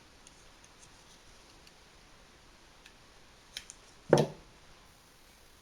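Quiet handling at a workbench while a power cable is prepared: a few faint clicks, then one sharp knock a little after four seconds in.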